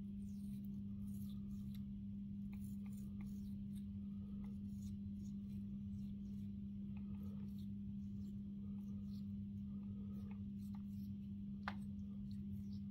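Scattered small clicks from an African grey parrot's beak over a steady low hum, with one sharper click near the end.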